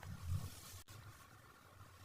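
A short, muffled low thump with a brief rustle, from handling of toy packaging.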